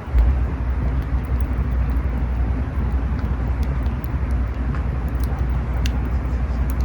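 Wood campfire burning: scattered sharp crackles and pops over a steady low rumble.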